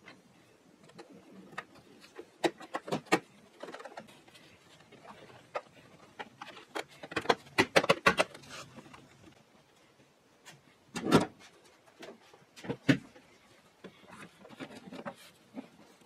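Scattered clicks, taps and knocks of hands working on a car's plastic door-sill trim, with a quick run of clicks about halfway through and a heavier knock a few seconds later.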